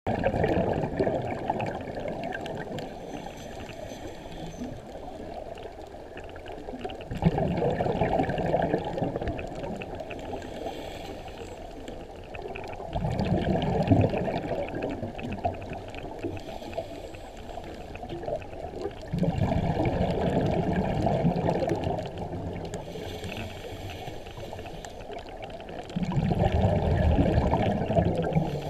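Scuba diver breathing through a regulator underwater: exhaled bubbles rumbling and gurgling five times, about every six seconds, with a fainter hiss of inhalation between them.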